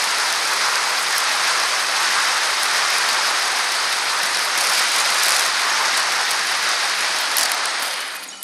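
Steady hiss of air rushing past a bicycle-mounted camera's microphone, mixed with tyre noise on asphalt. It fades near the end as the bike slows down.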